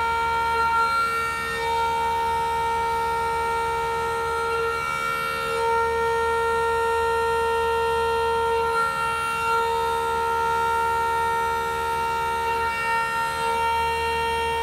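Keyseat (Woodruff) cutter milling a groove in a metal block on a CNC milling center, giving a loud, steady singing tone with several overtones that wavers slightly a few times, over a low machine hum.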